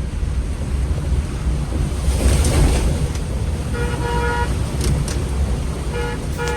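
A vehicle horn honking over a steady low rumble of street traffic and rushing water: one longer toot about four seconds in, then a couple of short toots near the end.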